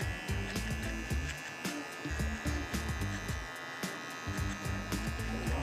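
Background music with a steady beat over the steady buzz of an electric hair clipper cutting a fade.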